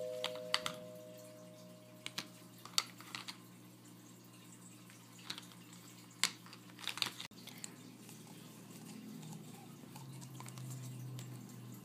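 Hard plastic Play-Doh molds clicking and knocking against each other and the table as they are handled, with about a dozen sharp clicks scattered over the first eight seconds. A two-note chime fades out over the first couple of seconds.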